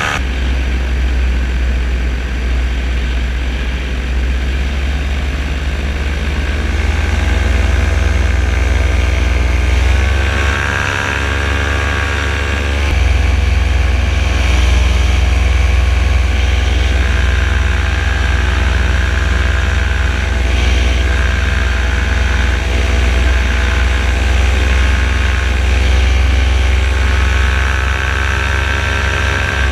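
Paramotor engine and propeller running steadily in flight, the engine note rising about a third of the way through as the throttle is opened and then holding at the higher pitch.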